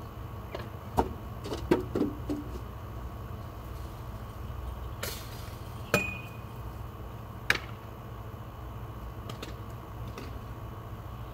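A few sharp knocks and clinks over a steady low rumble. One knock about six seconds in is followed by a brief ringing tone.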